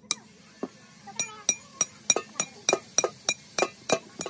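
Steel rod striking inside a metal cylinder as moulding sand is packed into it: a steady run of sharp, ringing metal clinks, about three a second.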